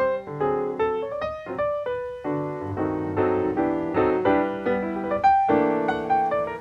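Background piano music: a melody of quick, separate notes over chords.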